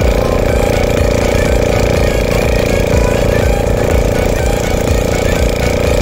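Boat's engine running steadily with a rapid low thudding.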